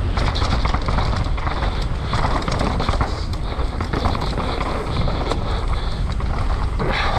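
Downhill mountain bike descending a dirt trail at speed: wind rushing over the microphone, a low rumble from the tyres on the ground, and frequent clicks and clatter from the bike over bumps.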